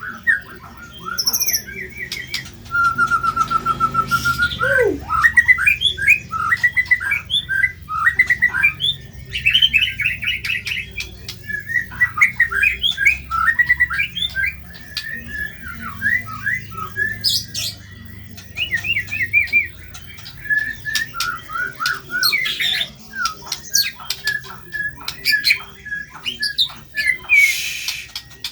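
White-rumped shama singing a long, fast, varied song of trills, whistles and harsh notes with hardly a pause.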